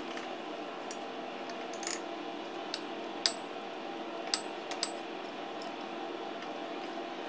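Sharp metallic clicks and clinks, about five of them, from a hand tap turned in a tap wrench as it cuts a thread into a metal part, over a steady hum.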